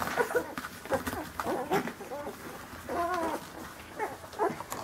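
Young Rhodesian Ridgeback puppies whimpering and squeaking while they suckle from their mother: a string of short, wavering calls, several overlapping.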